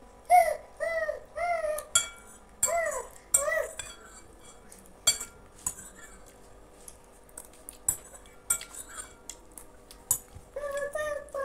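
Metal spoon scraping and clinking against a glass bowl as the last of the kheer is scooped out, with sharp clicks scattered throughout. Several short rising-and-falling cries sound in the background in the first few seconds and again near the end.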